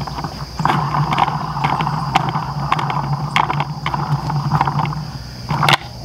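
Plastic top piece being screwed onto the bell of a poultry bell waterer by hand: irregular plastic clicks and rubbing close by, over a steady low hum.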